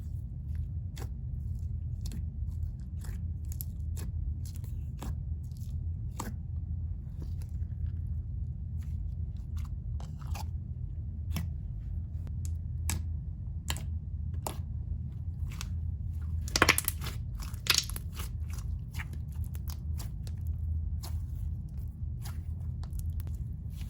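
Slime being squished and poked by hand, giving scattered small clicks and pops with a louder burst of crackling pops about two-thirds of the way through, over a steady low hum.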